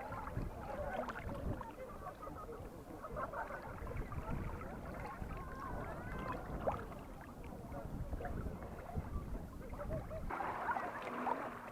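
Sea water sloshing and splashing close to the microphone over a low rumble, with indistinct voices in the background; the rumble stops abruptly about ten seconds in.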